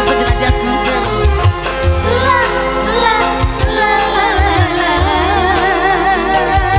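Live dangdut music with a woman singing over the band through a loud PA, low drum hits keeping the beat. From about four seconds in she holds long notes with a wavering vibrato.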